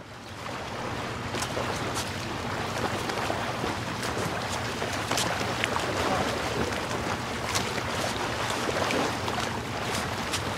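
Ocean surf and wind: a steady rushing wash with scattered crackles and a low steady hum beneath, fading in at the start.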